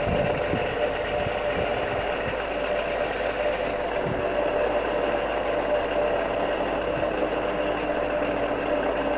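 Town AE4 radial arm drill running steadily under power, its spindle turning at 45 in the low speed range, a steady machine hum with a few even tones from the motor and gearbox.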